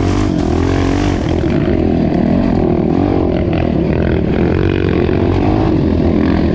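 Dirt bike engine running under throttle, its pitch rising and falling again and again as the throttle is worked.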